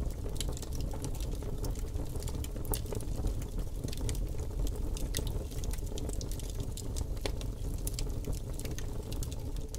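Wood campfire crackling, with frequent irregular sharp pops over a steady low rumble.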